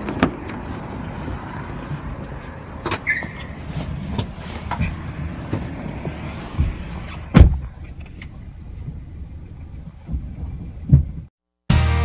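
Getting into a car: scattered knocks and handling thumps over the car's low rumble, with one loud thump about seven seconds in. After a brief silence, music starts just before the end.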